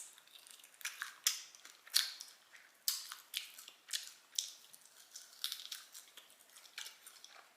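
Close-up crunching and chewing of crispy fried chicken: irregular, crisp crunches roughly every half second.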